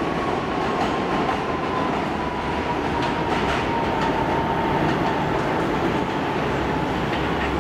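Kawasaki R62 subway train running away along elevated track: a steady rumble of wheels on rail with scattered clicks from the rail joints. Over it runs a thin whine that slowly drops in pitch, and a low hum builds near the end.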